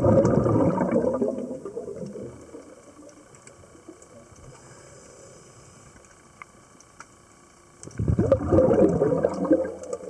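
Scuba diver's exhaled air bubbling out of the regulator underwater: a rush of gurgling bubbles that fades over the first two seconds, a quiet stretch with a few faint clicks, then a second exhalation about eight seconds in.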